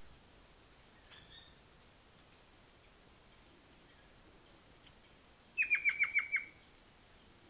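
Rufous-capped antthrush (pinto-do-mato) and rufous gnateater (chupa-dente) calling in agitation. A few short, sharp, high notes that drop in pitch are spaced a second or more apart, and a loud run of about six quick notes comes a little after halfway.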